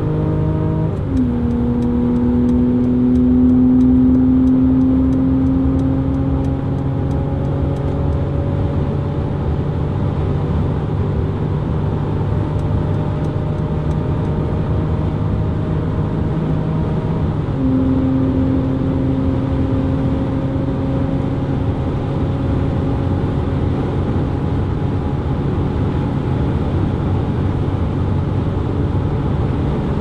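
Mercedes-Benz E 300 S213's four-cylinder turbo engine pulling hard at high speed, heard from inside the cabin, with tyre and wind noise underneath. The automatic gearbox upshifts twice, about a second in and a little past halfway, the engine note dropping at each shift and then slowly climbing again.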